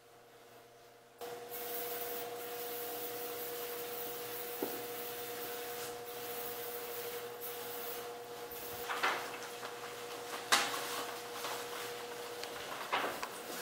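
Hands handling things on a wet glass tabletop: faint rubbing, with a few short scrapes and knocks from about nine seconds in, over a steady low hum.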